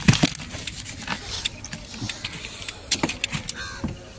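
Irregular clicks, knocks and rattles from a gill net and fish being handled in a small boat.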